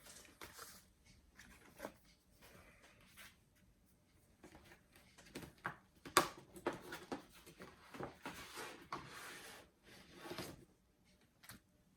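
Books being handled: paper rustling and pages turning, with light knocks of covers, in irregular bursts and a sharper click about six seconds in.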